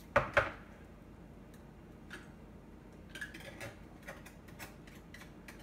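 Metal clinks of a wire whisk against a stainless steel pot. There are two sharp knocks just after the start, then scattered lighter ticks.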